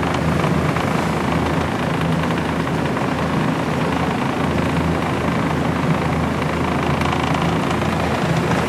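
Small motorboat's engine running steadily under way, a low even hum with a rush of wind and water over it.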